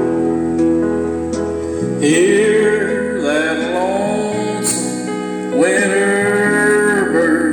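A man singing a slow country ballad over guitar accompaniment; his voice comes in about two seconds in with long, sliding held notes.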